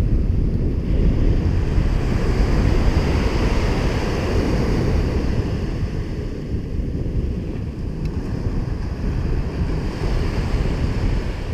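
Wind buffeting the microphone over the steady wash of surf breaking on the beach, easing slightly in the second half.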